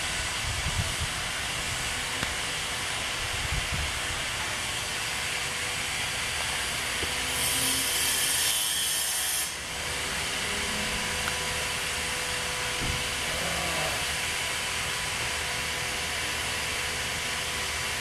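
Steady outdoor background hiss with a faint steady hum. A brighter, higher hiss swells in about seven seconds in and stops about two seconds later.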